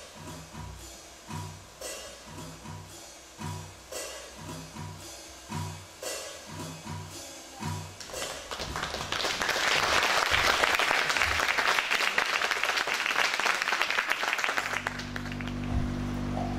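Percussion-led music: low pitched drum strokes in an even, repeating pattern. About halfway through it gives way to a loud, dense hiss lasting about six seconds, and near the end to a steady low droning chord.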